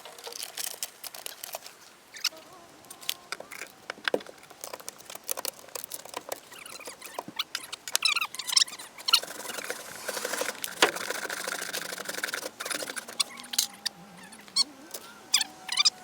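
Plywood being worked loose and pulled out by hand: irregular knocks, cracks and scraping of wood, with short squeaks from wood or fasteners, mostly in the second half.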